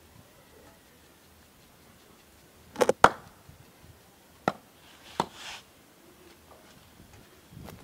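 Cleaver chopping raw pork on a wooden chopping board: a few sharp separate chops, a quick pair about three seconds in (the loudest), then single chops at about four and a half and five seconds.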